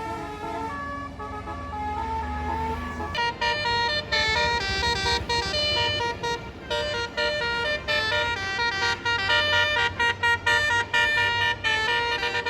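A bus's telolet Basuri musical air horn playing a rapid melody of stepped notes, softer at first over a low engine rumble, then much louder from about three seconds in.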